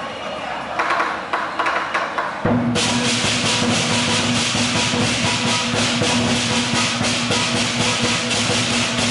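Lion dance percussion: a large Chinese lion dance drum with crash cymbals. A few loose strikes come about a second in. From about two and a half seconds in, the drum and cymbals play fast and loud without a break.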